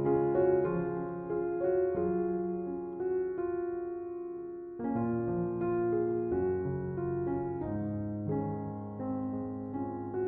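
Background music: a slow, gentle piano piece with sustained notes, fading briefly about halfway through before the next phrase comes in.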